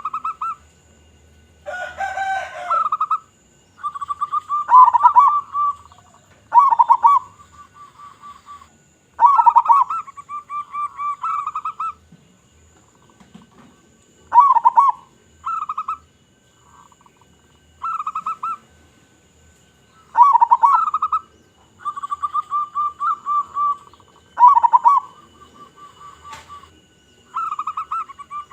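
Zebra dove (local perkutut) cooing: repeated short phrases of quick, pulsing coos, one every second or two, with a deep, full voice.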